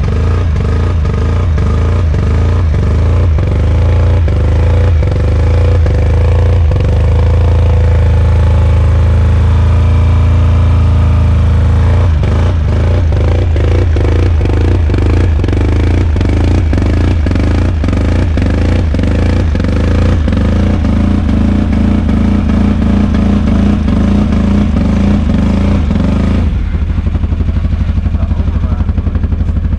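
Four-wheeler (ATV) engine running under way, with a steady fast clatter and rattle over it; about 26 seconds in the engine eases off and the sound quiets.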